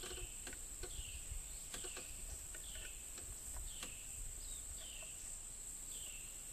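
Insects, crickets or similar, drone steadily and high in the background, with a short downward chirp repeating about once a second and a few faint light clicks.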